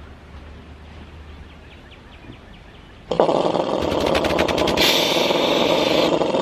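Homemade tankless air compressor starting up suddenly about three seconds in, its electric-motor-driven pump running loud with a rapid, even pulsing. For about a second near the end a sandblast gun hisses as it blows air and sand.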